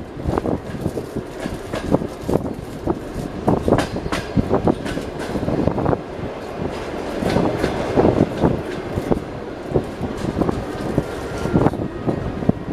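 Passenger rail carriage running at speed, its wheels clattering over rail joints in irregular sharp knocks over a steady rolling rumble.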